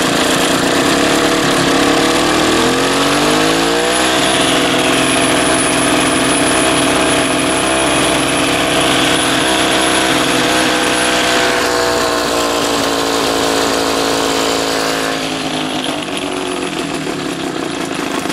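3 hp Tecumseh single-cylinder gas engine driving a grinding wheel. It rises in speed about three seconds in, runs steadily, then slows in two steps toward a low idle, still keeping the wheel spinning.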